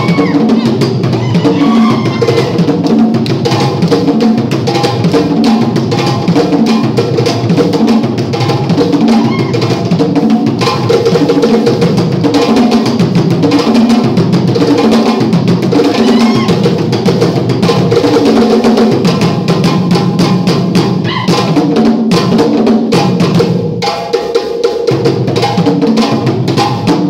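Djembe drumming: a fast, continuous rhythm with deeper drums underneath.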